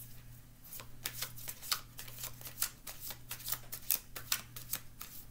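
A deck of tarot cards shuffled by hand: irregular quick clicks and slaps of cards against each other, several a second. A low steady hum runs underneath.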